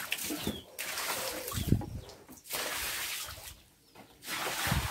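Water thrown from a bucket splashing and sloshing across the floor of a chicken pen to rinse it, in several gushes with a short break about three and a half seconds in.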